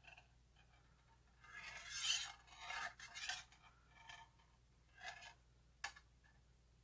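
Small metal weight adapters scraping and clinking against the stainless-steel platform of a digital kitchen scale as they are set on it and shifted by hand: a run of soft scrapes, then a single sharp click near the end.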